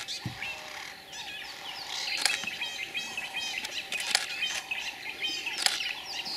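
Several birds chirping and calling, with runs of short repeated high notes, and a few brief sharp sounds standing out about two, four and five and a half seconds in.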